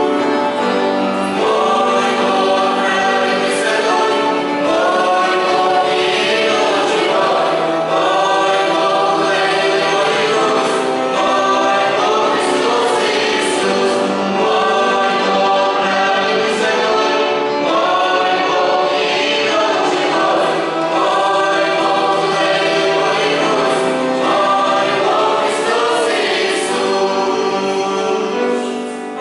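Youth choir singing a Christian song in sustained, steady phrases.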